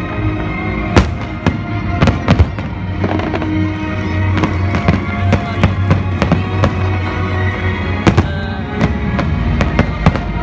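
Aerial fireworks shells bursting in irregular sharp bangs, sometimes several in quick succession, with music playing throughout.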